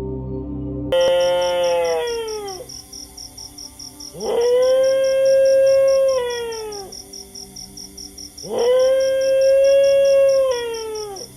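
A dog howls three times. The first howl starts suddenly about a second in and slides down; the next two rise, hold a long steady note, then fall away. Soft music with a fast pulse plays underneath.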